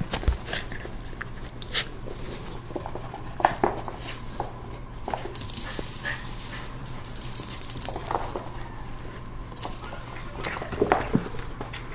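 Small dog playing rough with a plush toy, with scuffles and short knocks throughout and a few brief dog noises. A stretch of rustling runs from about five to eight seconds in.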